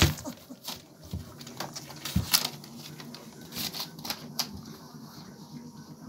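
German Shepherd puppies suckling at their mother, a run of quick, irregular wet clicks and smacks from their mouths. A sharp knock right at the start and a low thump about two seconds in.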